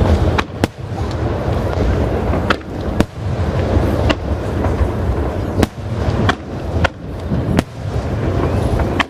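Aerial fireworks bursting in quick succession: a continuous low rumble of shell bursts, broken by about ten sharp cracks.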